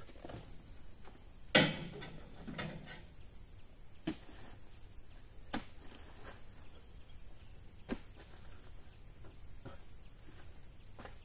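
Steady high-pitched insect drone, with a few scattered thuds and knocks; the loudest comes about one and a half seconds in.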